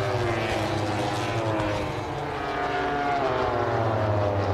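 MotoGP racing motorcycles' four-cylinder 1000 cc engines at high revs as a group of bikes goes through a corner. The pitch slides down, climbs again about halfway through, then drops once more.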